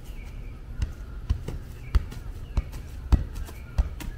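A soccer ball thudding off a foot again and again, about seven touches at uneven intervals of roughly half a second: a child juggling the ball, keepy-uppies.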